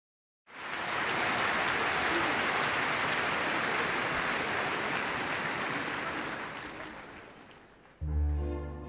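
Concert audience applauding, the clapping slowly dying away; about eight seconds in, the orchestra's low strings begin the introduction to a song.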